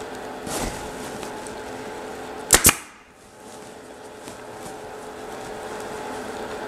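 Upholstery staple gun firing once about two and a half seconds in, two sharp snaps in quick succession, driving a staple through the fabric cover into the chair's wooden seat frame. A steady low hum runs underneath.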